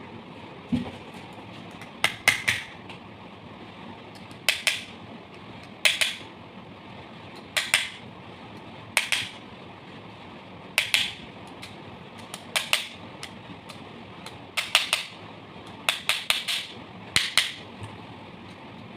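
Sharp metallic taps or clicks, about a dozen at uneven intervals of one to two seconds, some in quick pairs or triplets, over a steady background hum.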